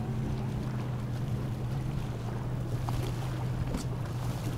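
A boat engine idling with a steady low hum, under wind and choppy water.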